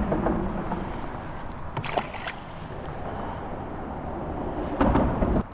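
Wind buffeting the microphone as a low rumble, with a few small clicks and knocks from handling around two seconds in and a louder gust or bump near the end that cuts off suddenly.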